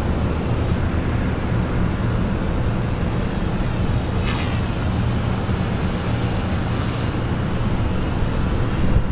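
A micro RC helicopter with an Extreme Spin 16,300 kV motor is in flight, giving a steady high-pitched whine that wavers slightly in pitch. A low wind rumble on the microphone runs underneath.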